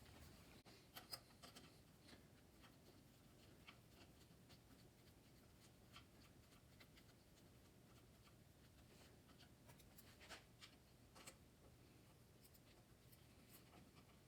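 Near silence with faint, scattered clicks and light rubbing of small tools and bicycle brake parts being handled as a brake bolt is fitted, with a few louder ticks about a second in and again around ten and eleven seconds in.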